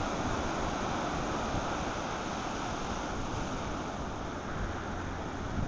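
Ocean surf washing in, a steady rushing noise that eases slightly about four seconds in.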